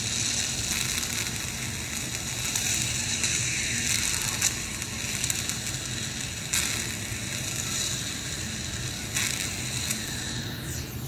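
Medical ear suction tube drawing thick, sticky middle-ear fluid (glue ear) out through the eardrum: a steady hiss with crackling, and a few brief louder slurping surges as the mucus goes up the tube.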